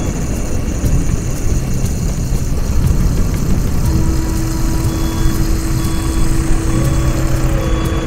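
Heavy armored truck engine running steadily, its sound sitting mostly in the low end. About halfway through, a steady hum-like tone joins it and holds.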